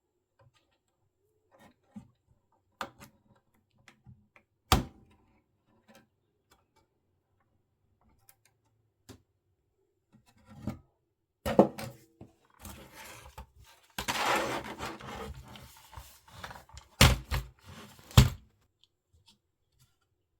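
Scattered clicks and sharp knocks of plastic parts and wire connectors being handled and unplugged inside an opened radio cassette recorder, with a few seconds of rubbing and rustling about two-thirds of the way through.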